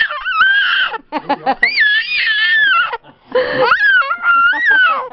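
A baby squealing: three long, very high-pitched squeals that glide up and down in pitch, with short breathy sounds between them.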